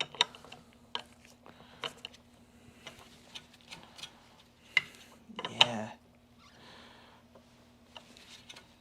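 Irregular light clicks and ticks of hands handling the vacuum cleaner's motor and metal fan parts, over a faint steady hum.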